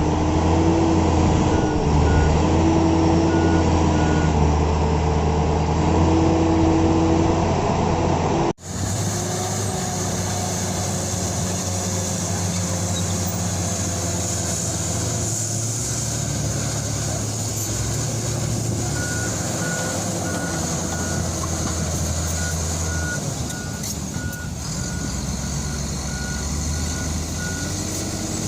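Bulldozer's diesel engine running steadily with its reversing alarm beeping at even intervals, in the first few seconds and again through the last third. The sound changes abruptly about a third of the way in.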